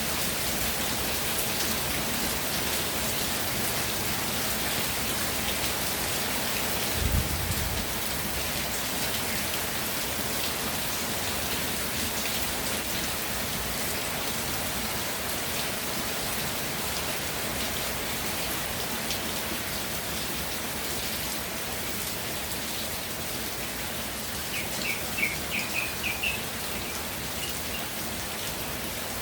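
Steady rainfall, a dense patter of drops. A brief low thump comes about seven seconds in, and a bird chirps several times in quick succession near the end.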